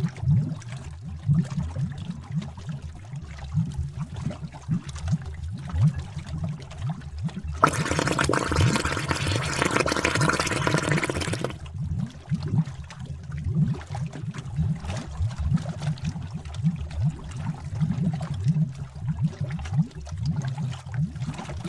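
Bubbling cauldron sound effect: thick liquid bubbling with a steady run of low, deep pops. About a third of the way in, a rushing hiss joins for about four seconds, then stops.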